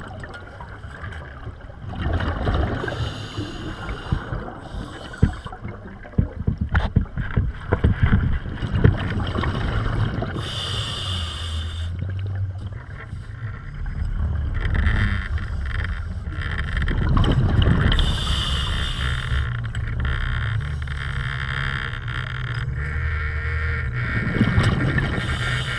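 Scuba breathing underwater: a short hissing inhale through the regulator about every seven or eight seconds, with low rumbling, gurgling exhaled bubbles between. Scattered knocks and clicks in the first several seconds.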